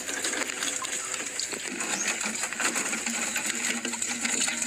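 Wire-mesh fish trap rattling as it is handled and shaken, a rapid run of small clicks and jingles.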